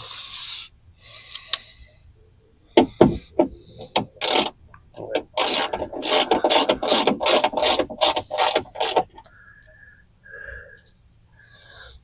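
Hand ratchet wrench clicking as a door-latch fastener is tightened: a few separate strokes, then a fast run of clicks lasting several seconds that stops a few seconds before the end.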